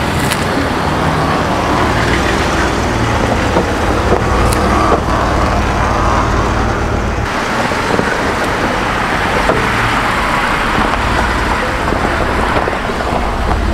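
Jeep Wrangler driving slowly past close by on a dirt track, its engine running steadily. The engine sound eases briefly about seven seconds in, then carries on.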